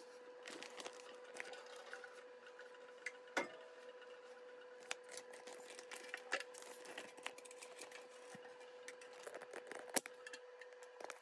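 Handling a portable stainless steel steam sterilizer: scattered light clicks and knocks as its metal lid is lowered and settled over plastic grow bags, with the sharpest knocks about three seconds in and again near the end. A faint steady hum runs underneath.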